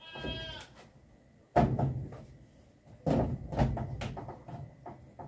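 A short high-pitched call at the start, then two sets of sudden loud knocks and clatter about a second and a half apart, each trailing off in lighter taps.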